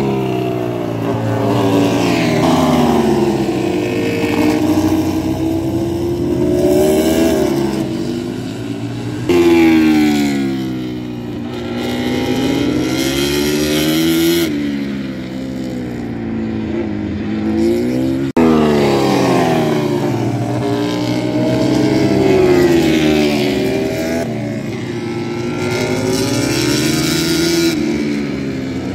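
MotoGP race motorcycles passing at speed on the track, one after another. The engine note climbs through the gears and drops back again and again. There are sudden jumps in loudness about nine and eighteen seconds in.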